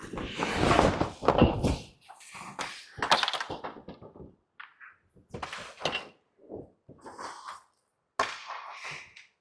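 Irregular thuds and knocks of ice hockey play picked up by a goalie's body-worn mic, loudest in the first two seconds.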